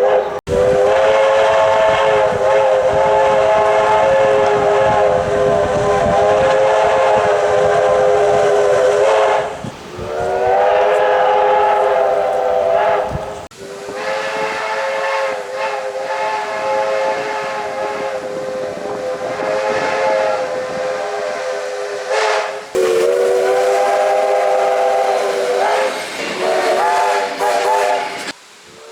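Train horns sounding four long blasts, each a chord of several notes held steady, with short breaks between them.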